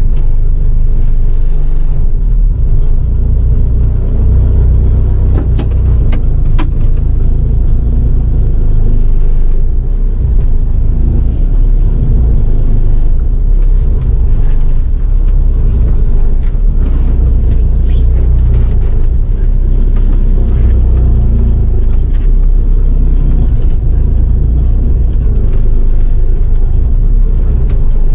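Volkswagen van's engine running, heard from inside the cab as a loud, steady low rumble while the van moves slowly.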